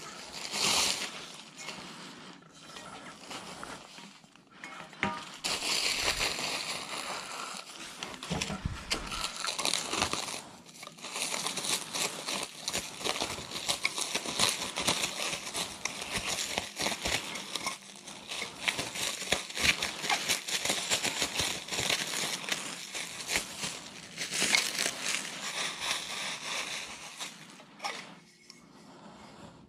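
Plastic wrapping crinkling as it is handled and pulled off the aluminium frame pieces of a fishing cart, almost without a break.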